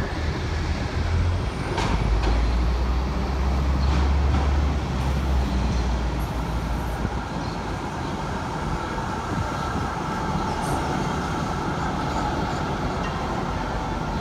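Melbourne A2-class tram approaching along the track, its traction motors humming and steel wheels running on the rails, with a few clicks over the rail joints. A steady whine comes in over the second half as it draws close.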